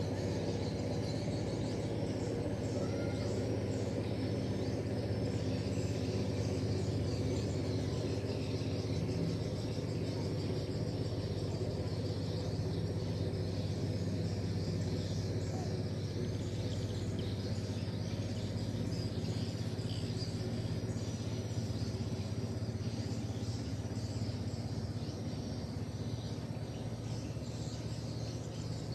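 Insects and birds chirping over a steady low hum.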